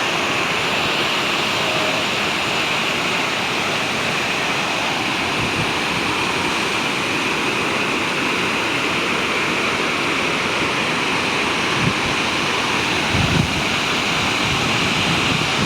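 Charpa waterfall in rainy-season flow: a steady rush of falling water, loud and unbroken, with two brief low bumps near the end.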